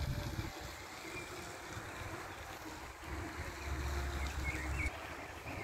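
Low outdoor rumble, stronger from about three and a half seconds in until near five seconds, with a few faint bird chirps.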